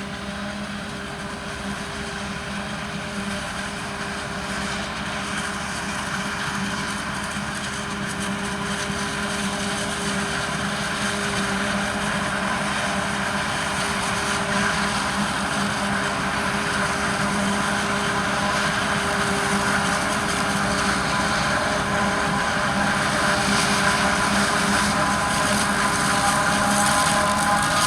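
Heavy farm machinery running steadily at maize harvest, a forage harvester or a carting tractor, with a constant droning tone, growing steadily louder, and a higher whine coming in near the end.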